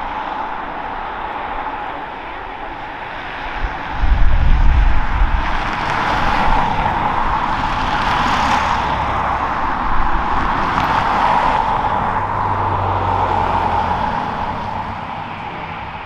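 Jet airliner engines, a steady whine over a rushing roar, with wind buffeting the microphone in low gusts from about four seconds in.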